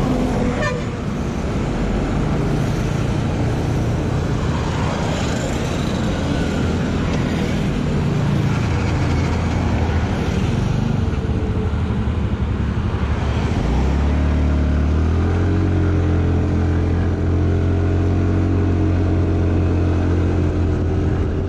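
TVS Ntorq 125 scooter's single-cylinder CVT engine pulling away from a standstill about two-thirds of the way in: its note rises and then settles into a steady cruise, with heavy wind rumble on the microphone. Before that, surrounding traffic runs while the scooter waits.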